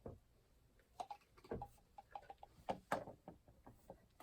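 Faint clicks and light knocks of cardboard Funko Pop boxes being handled and set down, a string of small taps scattered through.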